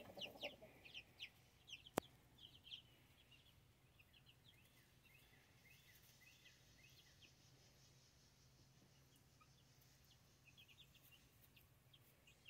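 Young chicks peeping: short, high chirps, many in the first few seconds, then sparse and faint, picking up again near the end. A single sharp click about two seconds in.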